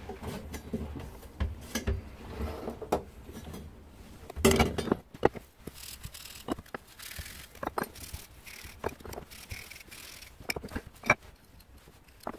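Copper pipes and fittings handled on a workbench, with light clinks and knocks and a louder clatter about four and a half seconds in. Midway there is a rubbing hiss as a pipe end is scrubbed with wire wool, cleaning it ready for soldering.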